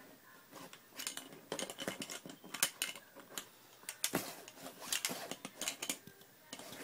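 Irregular clinks and taps of a plastic toy knocking against a small glass cup, starting about a second in, a few of them sharper with a brief ring.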